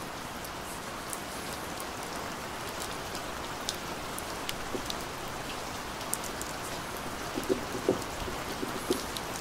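A steady rain-like hiss with faint scattered ticks. Near the end come a few soft taps as hands handle a cardboard box.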